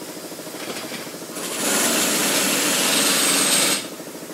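A loud, even hiss of pressurised gas with a faint high whistle starts about a second and a half in, lasts a little over two seconds and cuts off abruptly. Under it, a machine runs with a fast, steady pulsing.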